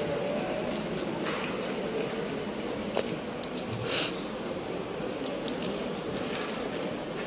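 Steady hum of a hall's air conditioning and room tone, with a few faint clicks and a brief hiss about four seconds in.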